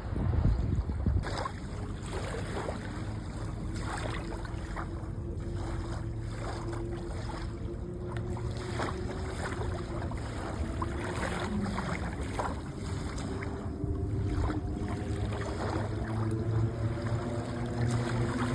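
Sea waves washing onto the shore, a continuous rush of surf with a low steady hum underneath; louder in the first second or so.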